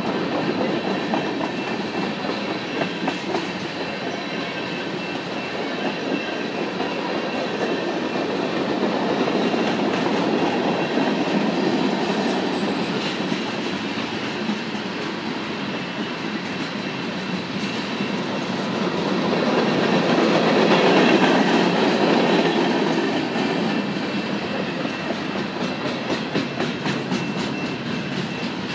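Freight train cars rolling past, a steady rumble of steel wheels on rail with clickety-clack over the rail joints. It swells louder about twenty seconds in.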